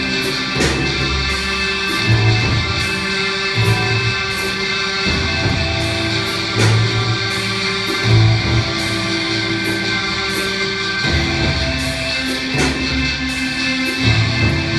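Rock-style music played live by a robot band of mechanically driven instruments: sustained guitar chords over shifting bass notes, with regularly repeating percussion strikes.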